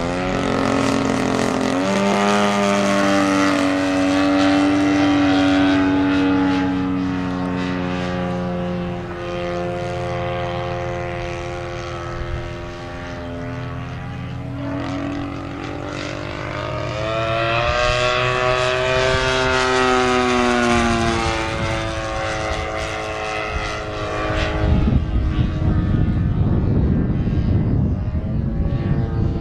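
Two-stroke gasoline engine and propeller of a 50cc Extreme Flight Extra 300 RC aerobatic plane in flight. Its pitch rises and falls several times as the throttle changes through the manoeuvres.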